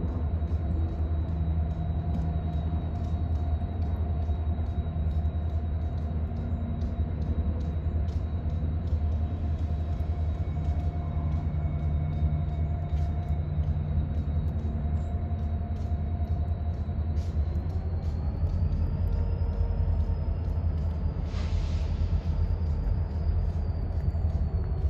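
Diesel locomotives running in a rail yard: a steady, deep engine rumble with a faint high whine over it. A brief hiss comes about 21 seconds in.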